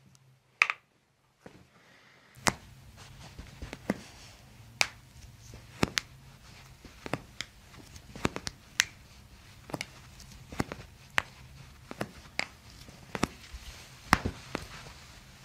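Foot and toe joints popping under a chiropractor's hand adjustments: about twenty sharp cracks at irregular intervals, one or two a second.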